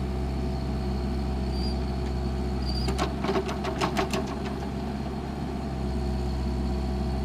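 Bobcat 331 mini excavator's engine running steadily, with a rapid series of metal knocks lasting about a second, about three seconds in.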